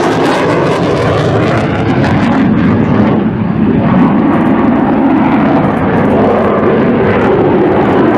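Saab JAS 39C Gripen fighter's single Volvo RM12 afterburning turbofan, loud and steady jet noise as it flies a display manoeuvre with the afterburner lit. The high hiss thins out about three seconds in while the deep rumble carries on.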